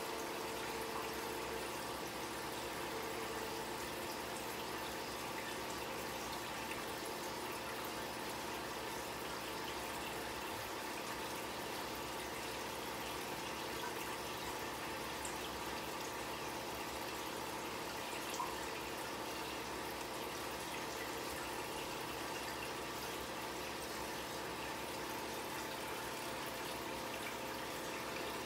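Steady trickle of water from an aquarium filter running, with a faint steady hum under it.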